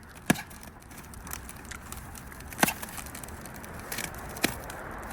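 A few sharp knocks and clicks over low background noise, the loudest about a third of a second in and another about two and a half seconds in.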